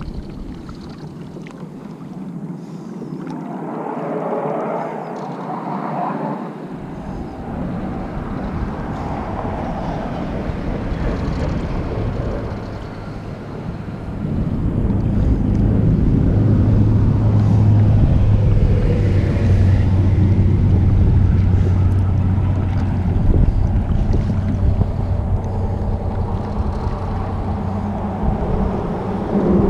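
Wind buffeting the microphone while a kayak is paddled on a river, with water splashing around the hull. From about halfway it gets louder and a steady low hum joins in.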